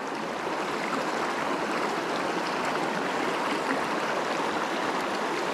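A small creek's water flowing, with a steady, even rush.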